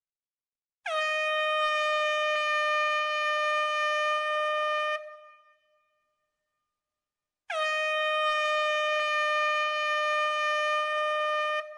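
Air horn sounding two long, steady blasts of about four seconds each, a couple of seconds apart, each dipping slightly in pitch as it starts. It is the kind of horn signal sounded as a warning before an explosive demolition blast.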